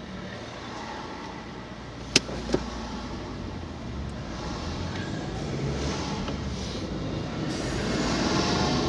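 Car driving, with steady engine and road noise from inside the cabin that grows louder over the second half. Two sharp clicks come close together about two seconds in.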